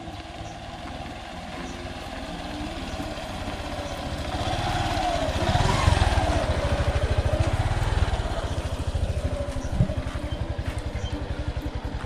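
Motorcycle engine running with an even pulse, getting louder about a third of the way in and staying loud, with a rising-and-falling whine in the middle as it works.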